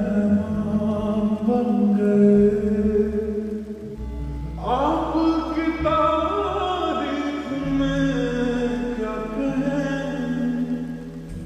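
Slow Hindi film song: a voice singing over sustained bass notes, with a new sung phrase starting about halfway through.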